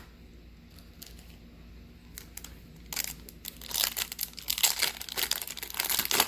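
Trading card pack wrapper being torn open and crinkled by hand, starting about three seconds in with dense crackling, loudest a second or two later.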